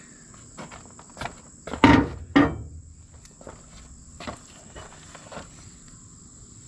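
A scatter of knocks and clunks, two louder ones close together about two seconds in, over a steady high-pitched drone of crickets.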